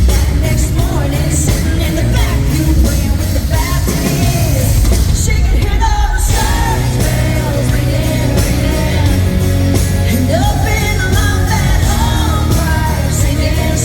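Live country band playing with a female lead vocal singing over a heavy bass and drum backing.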